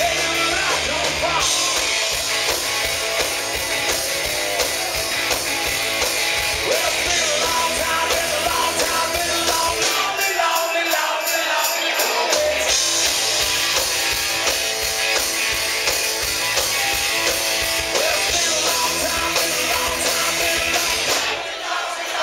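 Live rock band playing loud with distorted electric guitars, bass guitar and drum kit, with a man's voice singing and shouting over it at times. About ten seconds in, the bass and low drums drop out for a couple of seconds, then the full band comes back in.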